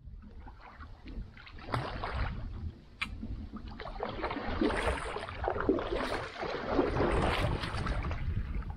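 Water splashing and sloshing around a Rainbow Oasis 4.30 kayak, growing louder about halfway through, with one sharp knock about three seconds in.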